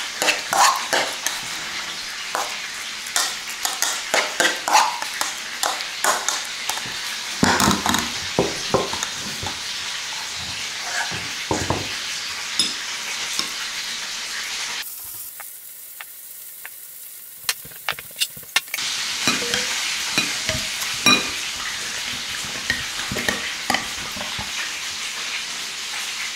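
A metal spoon scraping and clicking against a ceramic bowl as a mayonnaise-dressed salad is mixed, then spooned onto a plate, over a steady sizzling hiss. The clicking and hiss drop away for a few seconds in the middle.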